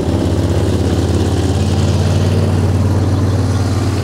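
An engine running steadily close by: a loud, even low hum.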